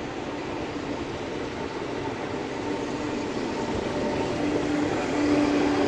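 Electric multiple unit train running past on the rails: a steady sound of wheels on track, with a humming tone that comes and goes and grows a little louder in the second half.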